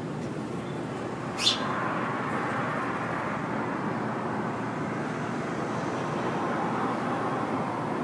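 Steady background noise of road traffic, swelling slightly now and then. About a second and a half in comes a single brief, sharp sound that sweeps quickly down in pitch.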